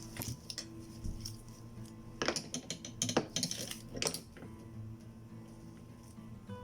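Metal clinks and scrapes as steering-rack parts are worked together by hand, busiest in the middle stretch, over soft acoustic guitar background music.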